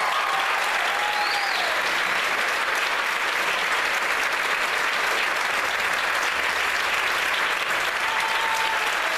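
Audience applauding steadily and thickly at the end of an orchestral performance, with a couple of voices calling out faintly about a second in and near the end.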